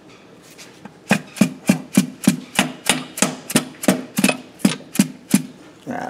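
Plastic mallet rapping repeatedly on the connecting rod and rod cap of a Case 336BD diesel engine, trying to knock loose a cap that is stuck tight on its crank journal. The strikes begin about a second in and run at a steady three or four a second.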